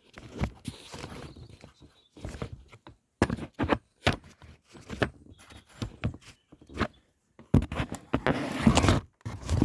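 Handling noise close to the microphone: irregular knocks, clicks and rubbing as the camera is moved and propped in place, with a longer stretch of scraping near the end.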